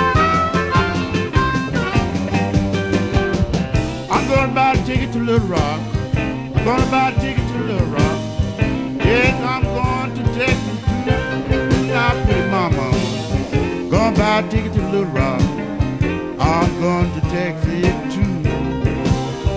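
Electric blues band playing an instrumental passage: a lead instrument bends notes over a steady bass-and-drums rhythm.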